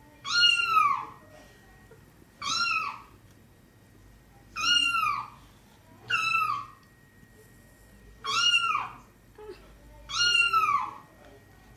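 Kitten meowing, played through a TV's speakers: six separate meows about two seconds apart, each a short call that falls in pitch.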